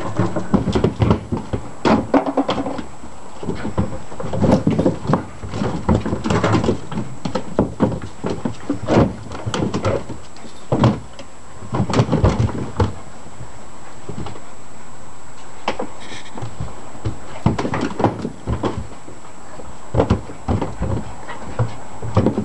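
Puppies scrambling and play-fighting on a hollow plastic hippo-shaped sandpit. Paws and claws knock and scrape irregularly on the plastic lid, with puppy growls and yaps now and then.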